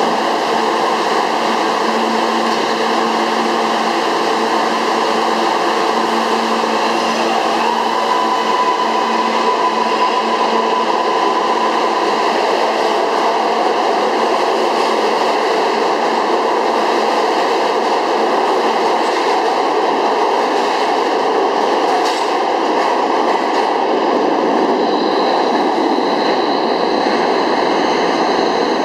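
R143 subway train pulling out of the station. A steady hum while it stands, then a tone that rises and holds about seven seconds in as it starts moving, giving way to the rumble and rattle of the cars rolling past on the rails.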